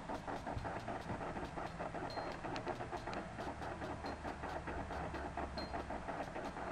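Laptop DVD drive spinning and reading the Mac OS X install disc during installation: a faint, steady whir with rapid fine clicking.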